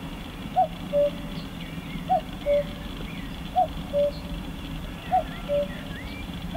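Common cuckoo (Cuculus canorus) calling its two-note 'cuckoo', a higher note dropping to a lower one. It calls four times, about every second and a half, with faint chirps of other small birds behind.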